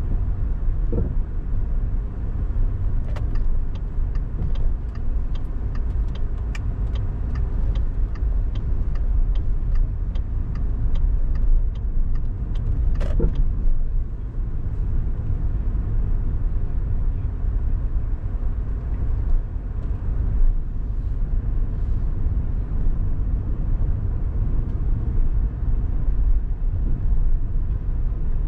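Car driving on city streets: a steady low rumble of road and engine noise. A run of sharp ticks, about two a second, comes in about three seconds in and stops around twelve seconds.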